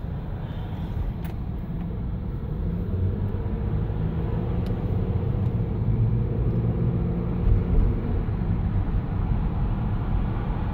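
Car driving on a freeway, heard from inside the cabin: a steady low rumble of road and engine noise.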